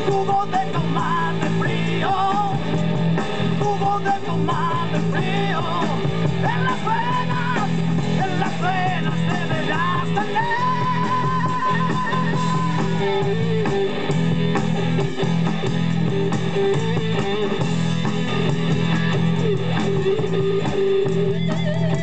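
Live rock band playing an instrumental passage: an electric guitar lead with bending notes and one long held note about halfway through, over a steady bass line.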